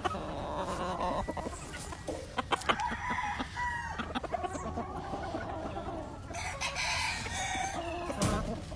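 Chickens clucking, with a rooster crowing about three seconds in.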